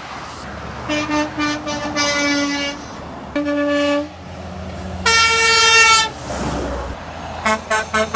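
Semi-truck air horns honking over a low engine rumble: a few quick toots about a second in, then a held blast, another short blast, then a louder, higher-pitched blast about five seconds in. Quick short toots follow near the end.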